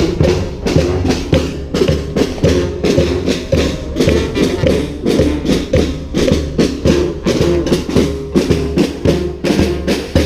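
Street brass band playing a cumbia tune: horns carrying the melody over drums keeping a steady beat.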